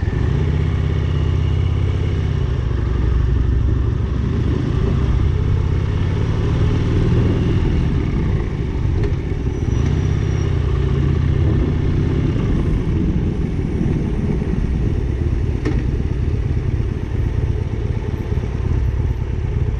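Motorcycle engine running under way, its pitch rising and falling with the throttle a few times.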